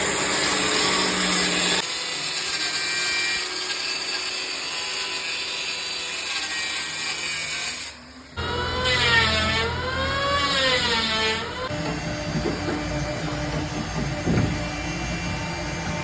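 Power tools working wood, a steady hissing machine noise broken by a sudden cut, then about three seconds of a wavering high-pitched tone, and then tool noise with scattered knocks.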